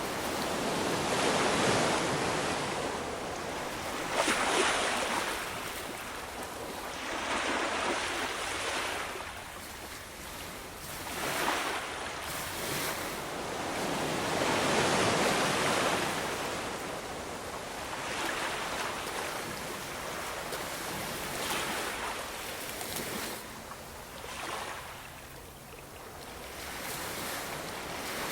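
Ocean surf: waves breaking and washing up in repeated swells, each rising and falling away over a few seconds.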